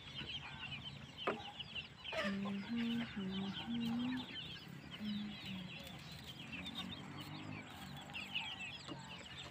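Hmong chicken chicks peeping continually in short high cheeps, while a chicken gives a run of about six short, low clucks between about two and six seconds in.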